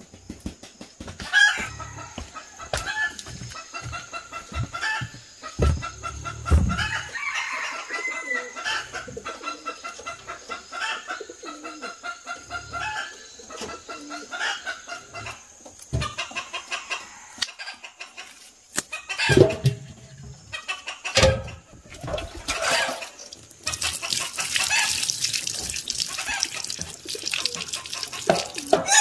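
Chickens clucking with repeated short calls. A few sharp knocks come about two-thirds of the way in, and near the end a steady hiss of running water sets in.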